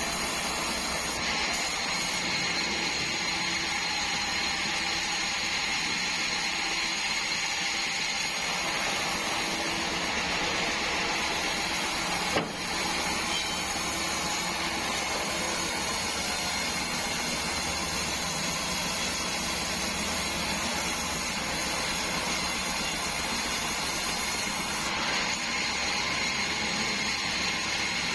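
Band sawmill running steadily, a continuous machine noise with a thin high whine, broken once by a single sharp knock about twelve seconds in.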